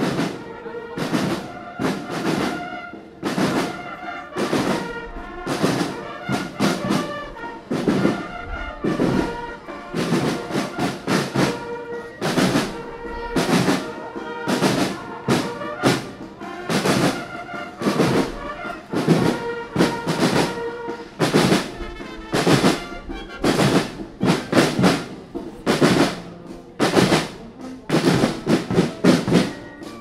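Military brass-and-drum band playing a march: held brass melody over a steady, regular drum beat.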